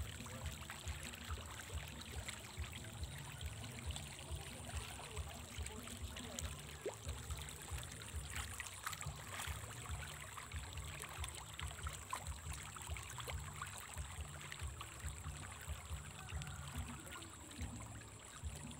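Pond water splashing and lapping, with many small irregular splashes over a low, uneven rumble; a thin steady high tone sits above it.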